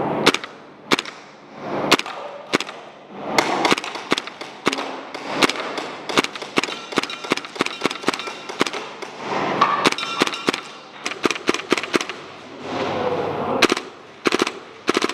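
PTS Mega Arms MKM AR-15 gas blowback airsoft rifle firing a series of sharp shots, single shots spaced about a second apart at first, then quicker strings of shots later on.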